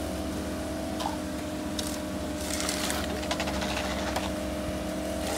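Heavy-equipment diesel engine running steadily at a constant pitch, with a low hum under it. A few short scrapes and knocks come and go over it.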